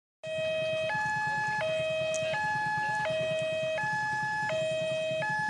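A two-tone electronic warning siren steadily alternating between a lower and a higher pitch, switching about every three-quarters of a second, over a low rumble. It starts abruptly just after the start.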